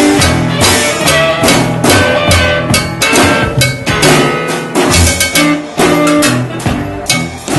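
Live band music: guitar playing with handheld percussion struck in a steady beat.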